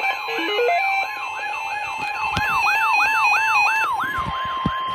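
Emergency weather alert alarm tones: a siren-like tone sweeping up and down about three times a second, layered with stepping beeps. A steady single-pitch alert tone near 1 kHz comes in about halfway through, the tone that precedes a warning broadcast.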